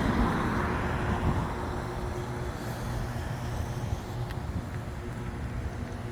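An engine running steadily at idle, with a low even hum. A hiss fades out over the first second.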